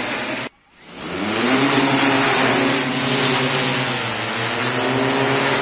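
Six-rotor agricultural spraying drone's propellers humming in flight, a steady multi-tone buzz. It cuts out briefly about half a second in, then returns with its pitch rising and holds steady.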